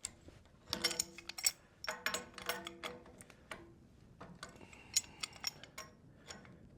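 Steel steering parts knocking and clinking against each other as they are worked around by hand, some knocks leaving a short metallic ring. The sounds come in clusters, most of them in the first three seconds, with a few more about five seconds in.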